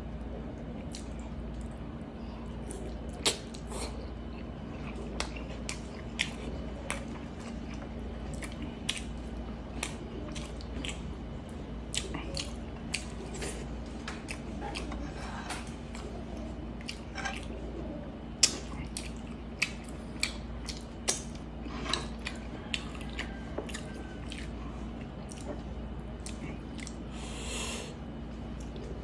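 Close-up chewing and lip-smacking of soft braised pork hock eaten by hand, with frequent wet mouth clicks and smacks. A faint steady hum runs underneath, and there is a short hiss near the end.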